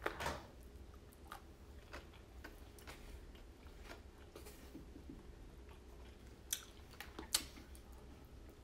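Close-miked chewing and mouth sounds of a person eating, with scattered soft clicks and two sharper clicks near the end.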